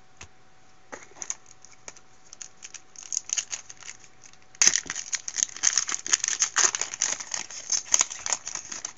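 Foil wrapper of a Bowman Platinum baseball card pack crinkling as it is picked out of the box, with a few faint crackles at first. About halfway through comes loud, dense crinkling and tearing as the pack is torn open.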